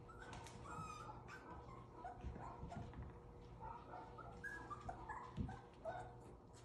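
Havanese puppies play-fighting, giving many short, high-pitched yips and whines, with a soft bump about five seconds in.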